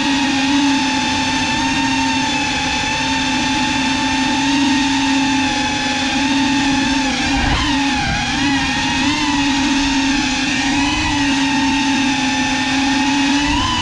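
GEPRC CineLog35 cinewhoop drone's brushless motors and propellers whining steadily in flight, with the pitch dipping briefly about seven and a half seconds in and again near the end as the throttle changes.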